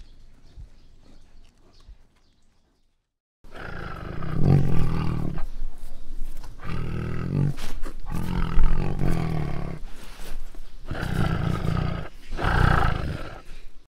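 Tiger roaring: a series of about five deep, loud roars that starts about three and a half seconds in, after faint sounds and a brief silence.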